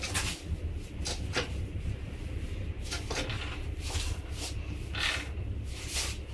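A few scattered knocks and clicks from work at a 20-ton manual hydraulic press, spaced irregularly over a low steady hum.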